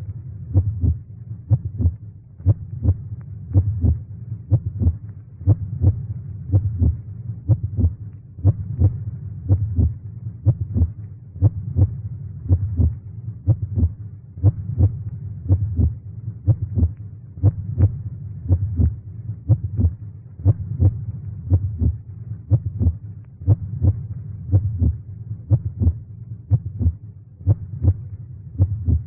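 Heartbeat sound effect: a low, steady, evenly repeating beat over a continuous low hum.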